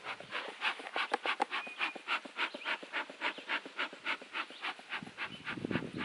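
Bee smoker's bellows pumped rapidly, giving short breathy puffs of air and smoke about four times a second, with a low rumble starting near the end.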